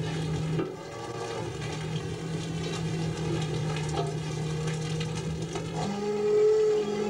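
Fishing boat's engine and deck machinery running with a steady drone and a noisy rush over it while the trawl net is hauled aboard; the drone shifts a little higher near the end.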